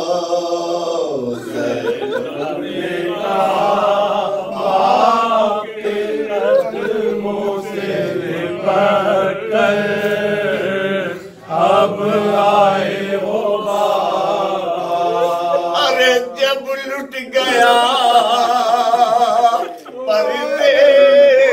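A lead male voice chanting a mourning elegy in a wavering, gliding melody, with other men's voices joining in.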